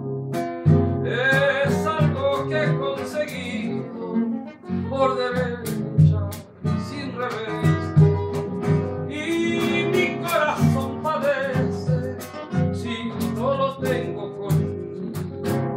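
A tonada sung by a man's voice over nylon-string classical guitars, plucked and strummed, the melody rising and falling in long phrases.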